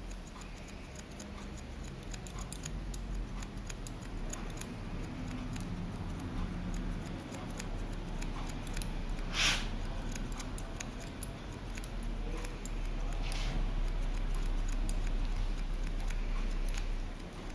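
Barber's scissors snipping rapidly over a comb, trimming short hair at the nape: a fast, continuous run of small clicks, with a brief louder swish about halfway through.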